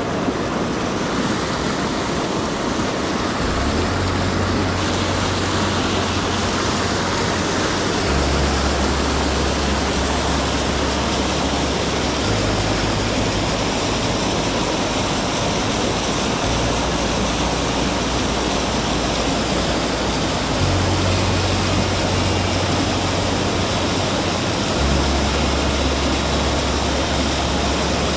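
Mountain stream water rushing steadily over rocks, with low steady notes underneath that change pitch about every four seconds.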